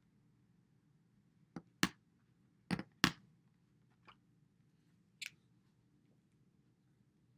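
Plastic dry-erase markers and their caps clicking as they are handled: about six sharp clicks spread over a few seconds, the loudest two about a second apart near the middle.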